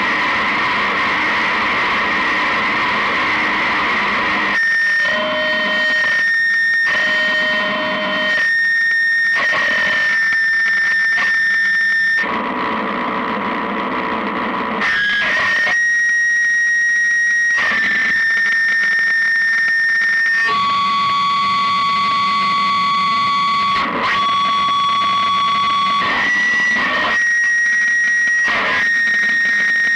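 Lo-fi experimental noise music from cassette: a dense wall of distorted noise that, about four and a half seconds in, breaks into choppy stop-start blocks over a steady high whine. A lower held tone joins for several seconds in the second half.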